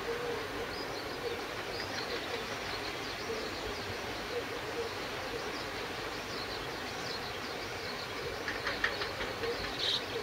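Steady rain falling, heard as an even hiss, with a few sharper ticks near the end.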